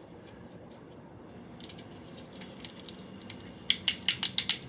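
Buttons and switches on a plastic fidget pad being clicked: faint clicks at first, then a quick run of about eight loud clicks near the end. Some of the pad's buttons are made to click quietly and others loudly.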